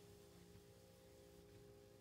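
Near silence: faint steady room hum.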